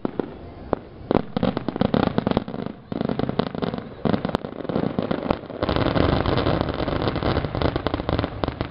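Fireworks finale barrage: aerial shells bang in rapid, overlapping succession from about a second in. About halfway through this merges into a dense, continuous crackling rumble that drops away near the end.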